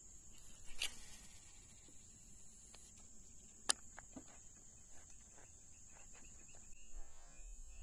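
Steady high-pitched insect drone, with sharp clicks about a second in and just before four seconds and a run of faint ticks after them; the drone stops near the end.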